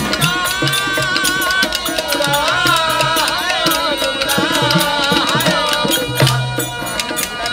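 Indian folk song played live on harmonium, dhol and a small hand drum, with a man singing a bending, ornamented melody over a steady harmonium drone and a beat of low drum strokes.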